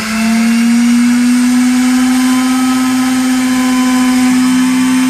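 Computerised key-cutting machine's motor running steadily as it cuts a car key blank, a loud whine that rises slightly in pitch at first and then holds steady.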